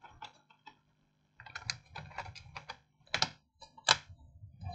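Keys of an Asus X543N laptop keyboard clicking as they are pressed: a few scattered clicks, then quicker runs of key presses from about a second and a half in, with two louder clacks in the second half.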